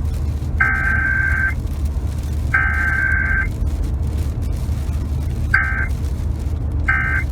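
Emergency Alert System SAME data bursts, a harsh buzzy warble: the last two of the three header bursts, each about a second long and a second apart, then two short end-of-message bursts about a second and a half apart, over a steady low hum.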